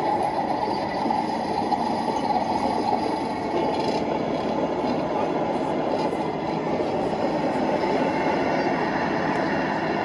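Steady mechanical rumble of radio-controlled 1/16 scale model tanks running: drive motors and tracks, with no pauses or sharp knocks.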